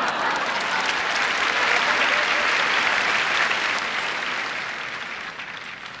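Large audience applauding, swelling at the start and gradually fading over the last couple of seconds.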